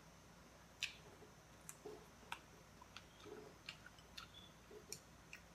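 Faint eating sounds over near silence: soft chewing and about a dozen scattered small clicks of chopsticks against a porcelain rice bowl.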